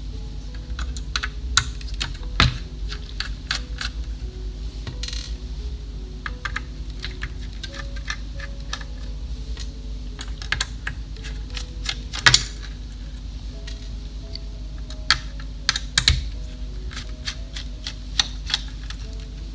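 Irregular small clicks and taps of a screwdriver and loose metal screws as a graphics card's heatsink and main plate are unscrewed, with a few sharper knocks, the loudest about twelve seconds in.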